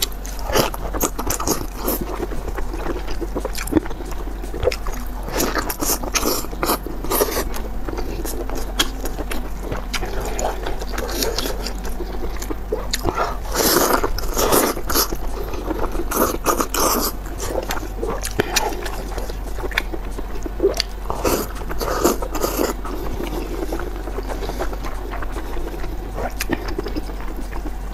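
Eating sounds of soft, chewy offal in oily chili sauce, eaten by hand: wet biting, chewing and smacking, with squishing from gloved hands, as a dense, irregular run of clicks and smacks. Louder clusters come about halfway through, with big bites.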